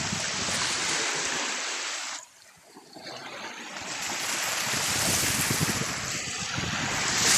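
Small waves washing onto a sandy beach: a steady rushing hiss that cuts out abruptly about two seconds in and swells back a second later.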